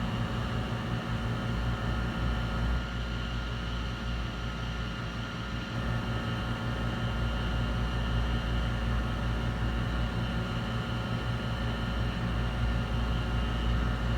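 Steady electrical hum with a fan-like whir from running bench equipment. It holds even and unchanging, with no distinct clicks or knocks.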